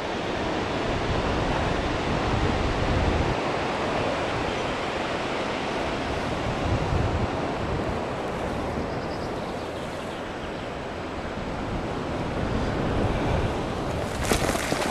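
Wind rushing over the microphone of a paraglider in flight, a steady noisy rush with low buffeting gusts. A few brief knocks near the end.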